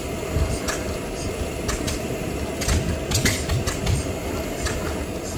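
Early hot-bulb stationary engine being turned over by hand at its flywheel during a start attempt, with irregular sharp clicks and low, uneven thuds from the engine. It does not catch and settle into steady running.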